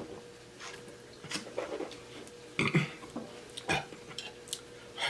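A person's short throaty noises among small clicks and rustles, over a faint steady hum.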